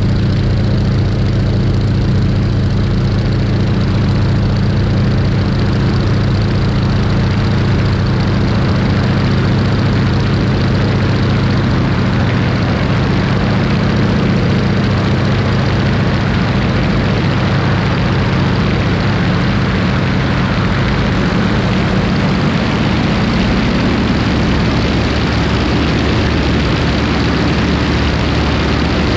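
PZL-104 Wilga 35's AI-14RA nine-cylinder radial engine and propeller running steadily in flight. It is heard from a camera on the aircraft's wing, with a rushing airflow that grows somewhat stronger about halfway through.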